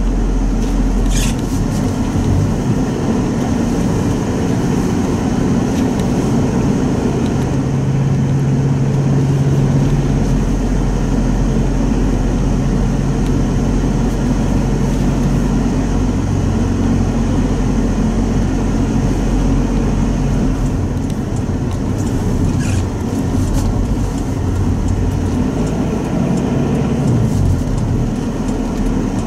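Mitsubishi Pajero Sport 2.5 diesel heard from inside the cabin while driving on snow-covered roads: a steady engine and road drone, with a brief tick twice.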